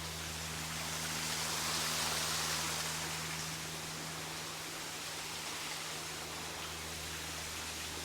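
Waterfall rushing as a steady, even hiss of falling water, swelling a little about two seconds in. A steady low hum runs beneath it.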